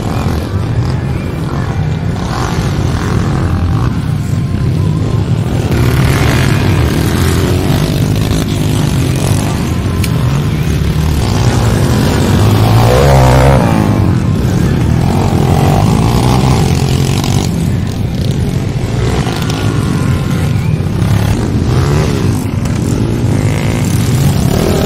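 Several dirt-bike engines revving as the bikes race over the track, their pitch rising and falling as they pass.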